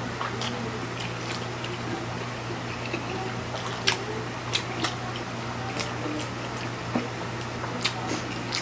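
Close-up eating sounds: two people slurping and chewing instant noodles, with short wet smacks and clicks at irregular intervals. A steady low hum runs underneath.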